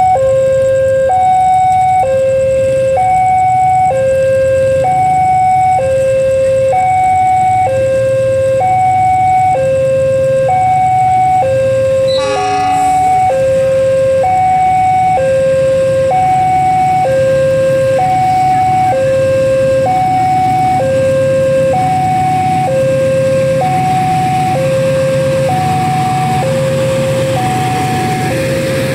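Railway level-crossing warning alarm sounding two alternating tones, high and low, each a little under a second, repeating steadily, over the low rumble of a departing passenger train.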